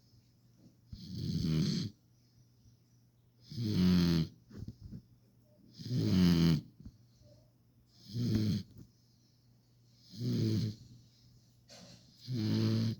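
Puppy snoring: six snores about two seconds apart, each lasting under a second.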